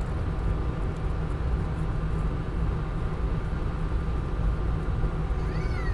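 Airbus A319 cabin noise while taxiing: a steady low rumble from the engines and the rolling airframe, with faint steady whine tones above it.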